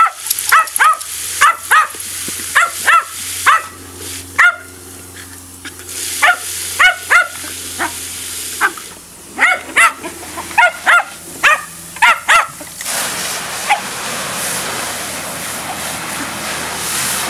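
Small terriers barking in quick high yaps as they lunge at the spray from a garden hose, over the hiss of the spraying water. The barking stops about thirteen seconds in, leaving only the steady rush of the hose water.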